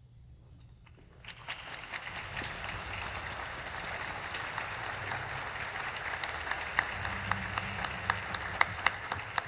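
Audience applauding: the clapping breaks out about a second in and holds steady, with a few louder single claps from close by standing out over the crowd toward the end.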